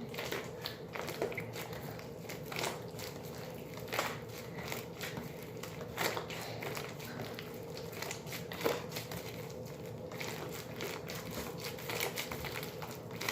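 Flarp slime being squished and mixed by hand, giving irregular small sticky pops and crackles, over a faint steady hum.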